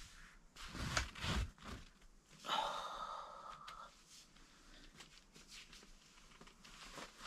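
Soft rustling and bumps from people shifting in their seats, with a breathy exhale lasting just over a second about two and a half seconds in.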